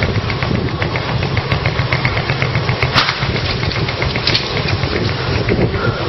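Small engine idling steadily close by, with a rapid, even pulsing beat.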